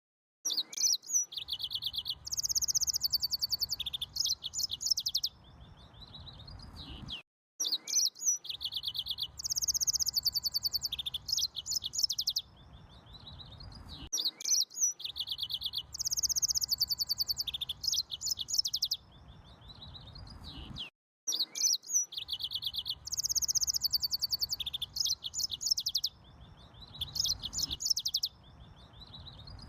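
Canary singing: fast trills and high chirps in a roughly seven-second phrase, the same phrase repeated four times with short gaps between.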